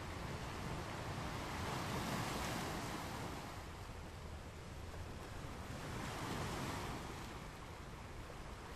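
Ocean waves crashing on a shore: steady surf that swells twice, about four seconds apart.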